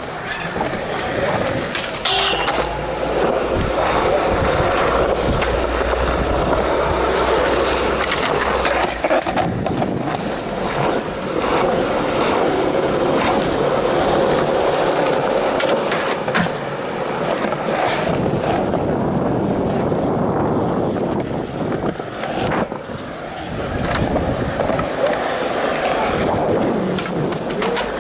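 Skateboard wheels rolling over smooth concrete in a continuous rumble, heard up close as the board passes. Several sharp clacks of the board hitting the ground are scattered through it.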